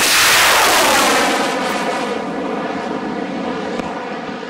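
Loud rush of a rocket motor at lift-off. It starts suddenly, falls in pitch over the first second or so, and then slowly fades.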